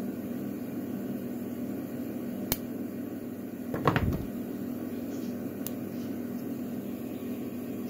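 Evva DPS lock cylinder parts being reassembled by hand: a sharp metallic click about two and a half seconds in, a brief clattering rattle around four seconds in, and a lighter click later, over a steady background hum.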